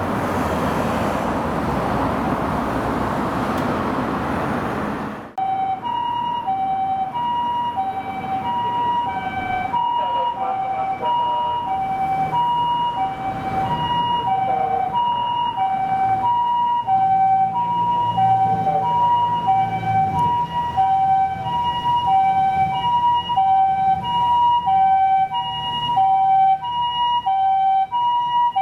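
A loud rushing road noise for about five seconds, then a Japanese ambulance's two-tone siren cuts in, alternating evenly between a higher and a lower tone (the 'pee-po' pattern) and growing louder toward the end, over a low vehicle engine rumble.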